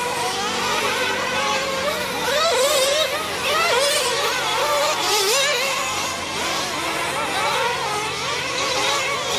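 Several nitro-powered 1/8-scale RC truggy engines revving and backing off, a high whine whose pitch keeps rising and falling as the trucks accelerate and brake through the corners and jumps.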